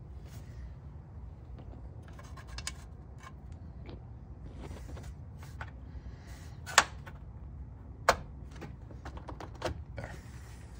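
Scattered clicks and knocks of parts and tools being handled during reassembly under a car, with two sharp clacks about two thirds of the way through, over a steady low hum.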